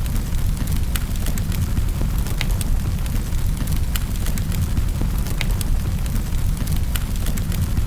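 Fireplace fire crackling: irregular sharp crackles and pops, several a second, over a steady low rumble of the flames.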